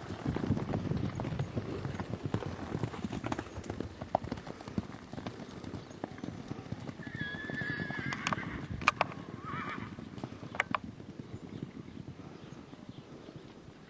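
Horses galloping loose over soft pasture, their hoofbeats a dense run of dull thuds that thin out and fade toward the end. About seven seconds in a horse whinnies with a long wavering call, followed by a shorter call a couple of seconds later.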